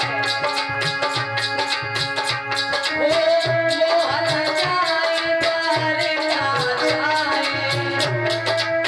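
Indian ghazal accompaniment music: sustained held chords with a melodic line over a fast, even beat of hand drums and a shaker.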